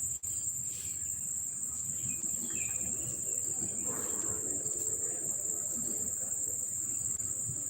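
Insects trilling in a steady, unbroken high-pitched chorus.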